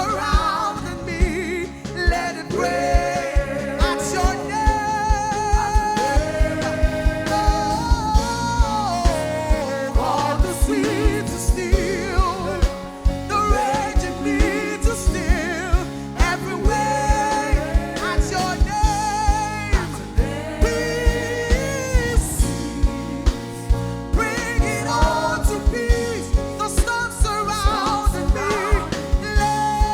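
Gospel worship music: a sung voice with vibrato over a band with a steady beat.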